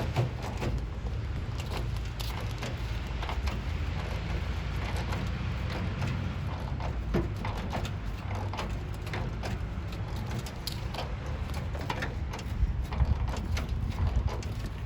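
Irregular clicks, clinks and knocks of hand tools working on an old truck's metal front-end parts during disassembly, over a steady low rumble, with a few louder knocks near the end.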